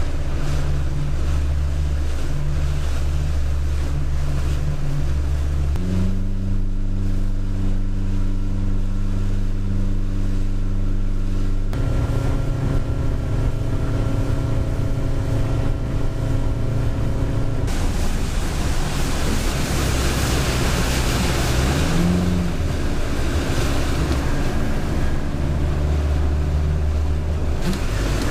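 Small boat's outboard motor running under way, with wind and water rushing past the hull. The engine note shifts abruptly about 6 and 12 seconds in, and from about two-thirds of the way through, the wind and water rush grows louder.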